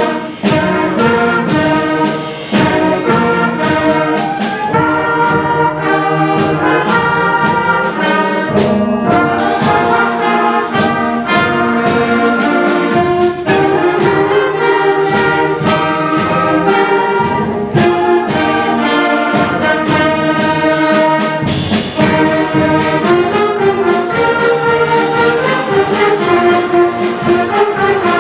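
A band playing a loud, full passage, with brass such as trombones and trumpets to the fore and frequent percussion strokes throughout.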